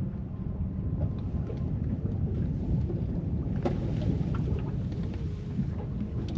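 Steady low rumble of wind on the microphone and water around a fishing boat, with a few light knocks.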